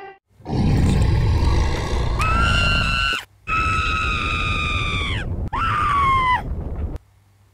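High-pitched screaming, three long screams with the last two falling in pitch at the end, over a loud rumbling noise that cuts off suddenly near the end.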